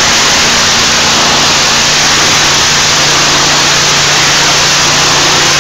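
Hot-water pressure washer spraying water in a loud, steady hiss, with the machine's engine humming underneath.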